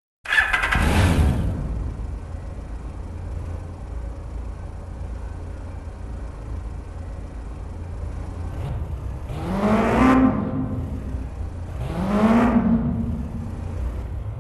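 Kawasaki Ninja H2R's supercharged inline-four engine revved hard at the start, falling back to a steady, low idle, then blipped twice more near the end, the pitch rising and dropping each time.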